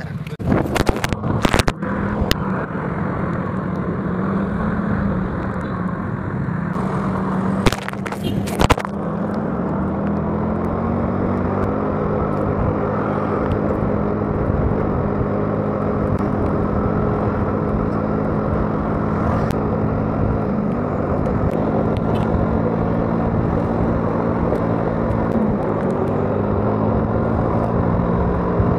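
Motor scooter engine running steadily as it rides along a road, its hum rising slightly in pitch about twelve seconds in, under rushing wind and road noise. Sharp crackles sound about a second in and again about eight seconds in.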